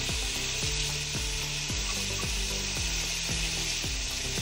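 Onion, potato and tomato pieces frying in hot oil in an aluminium pot, a steady sizzle, with green chillies dropped in. Background music with a steady low beat plays under it.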